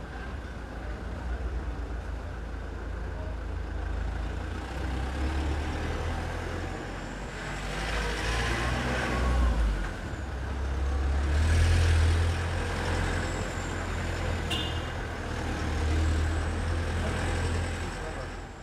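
Steady low rumble of road traffic, swelling louder a few times as vehicles pass.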